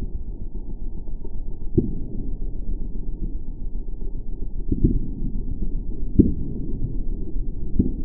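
Slowed-down sound of a high-voltage arc burning from a resonant microwave oven transformer setup: a deep, muffled buzz with four sharp cracks spread through it.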